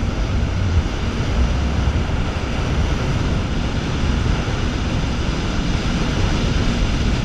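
Jet ski running at speed, a steady mix of engine noise and water rushing past the hull, strongest in the low end.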